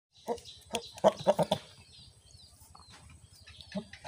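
Billy goat's short, rapid courtship grunts while nosing a doe. They come in a quick run of about six in the first second and a half, and one more near the end.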